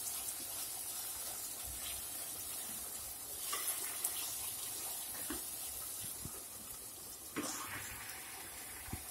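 Tomato and onion masala sizzling steadily in a pot on a gas burner, with a wooden spatula stirring and scraping through it in small clicks. About seven seconds in, marinated chicken pieces are tipped into the pot with a soft thump.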